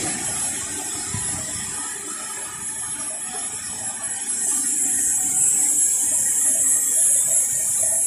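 Aerosol cleaner sprayed onto a steam boiler's air pilot pressure switch, hissing in a steady stream from about four seconds in, over steady background noise.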